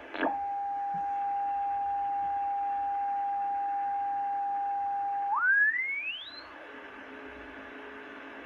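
A single pure whistling tone. It comes in with a quick downward swoop, holds one steady pitch for about five seconds, then climbs in steps to a high pitch and stops. A fainter, lower steady tone follows near the end, over a constant background hiss.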